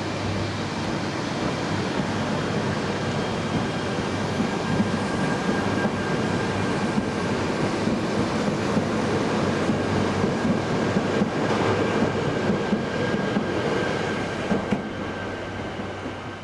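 Yamagata Shinkansen Tsubasa mini-shinkansen train pulling away along the platform and picking up speed: a steady motor whine under wheel clatter over the rail joints. The sound grows louder, then fades near the end as the last car goes by.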